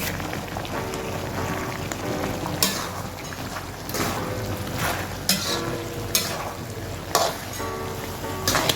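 Food sizzling steadily in a hot pan while a spatula stirs it, scraping the pan about six times at uneven intervals.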